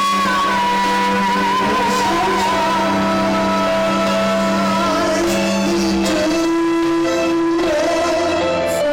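Music: a slow piece of long held notes, a wavering melody line over sustained lower notes.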